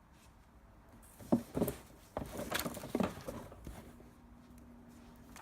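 Light knocks and clicks of plastic cart parts being handled, a handful clustered in the middle. A faint steady hum comes in near the end.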